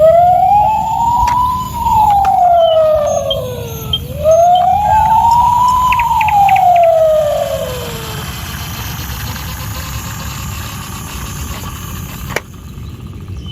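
Toy ambulance's electronic siren sounding a slow wail: the pitch rises and falls twice, then stops about eight seconds in. A steady low hum continues after that, with a single click near the end.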